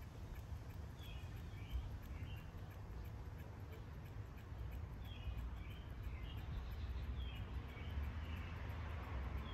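Rubber primer bulb on a 4 hp Tecumseh lawnmower engine pressed over and over in a steady quick rhythm, priming a hard-starting engine, with birds chirping now and then.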